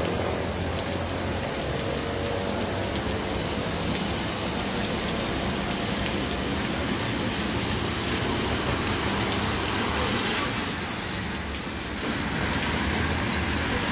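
Rain and traffic on a wet street: a steady hiss of tyres running through standing water, with vehicle engines passing.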